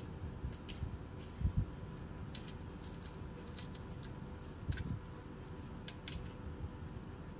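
Sparse light clicks and scratches with a few soft thumps, from a cat clawing at and climbing a pole while batting a hanging feather toy.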